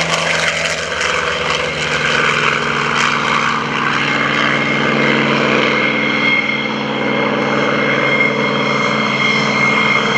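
Douglas A-1E Skyraider's Wright R-3350 eighteen-cylinder radial engine running at takeoff power as the heavy single-engine plane climbs away after takeoff, a steady propeller drone whose pitch sags slightly in the first couple of seconds.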